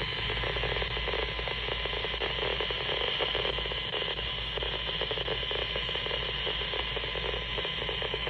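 Steady static hiss from the speaker of a small radio-flashlight combo, tuned to the weather band before a station comes in clearly.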